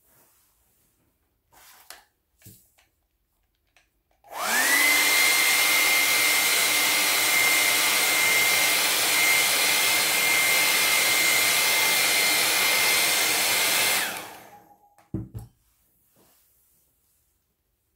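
Handheld hair dryer switched on about four seconds in and run for about ten seconds: a steady rush of air with a motor whine that climbs quickly to a steady high pitch, then winds down when it is switched off. A couple of short knocks follow soon after.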